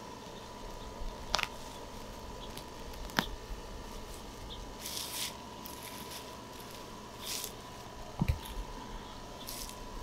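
Hands digging through loose compost and straw mulch: soil rustling and crumbling in short bursts, with a couple of sharp clicks and a dull thump about eight seconds in.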